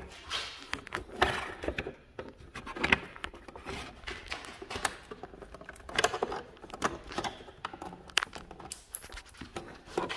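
Scattered plastic clicks, knocks and rubbing as the pickup truck's side mirror housing and chrome skull cap are handled and worked loose.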